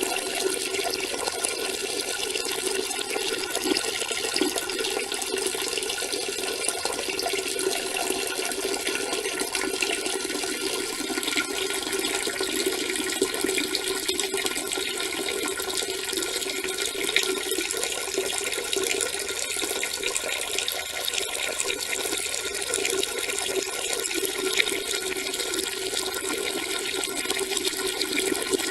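A steady stream of urine pouring and splashing into water, continuous and unchanging.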